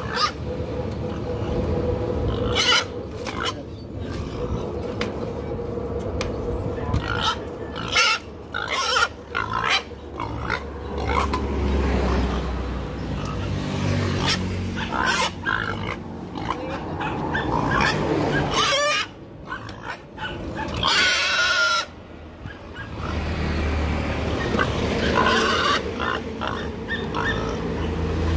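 Pig confined in a barred crate on a weighing scale, grunting and squealing, with one longer, high squeal about three-quarters of the way through. Short knocks and rattles are scattered among the calls.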